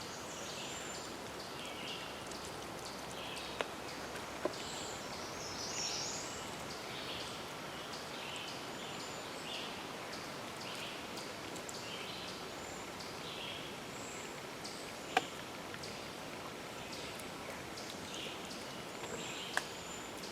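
Outdoor ambience with birds chirping and singing on and off throughout, over a steady background hiss. A few sharp clicks sound now and then.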